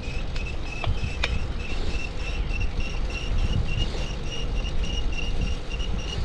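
An over-tightened bicycle chain with no slack squeaking in a high, even pulse several times a second as the bike is pedalled, over low wind and road rumble. Two sharp clicks come about a second in.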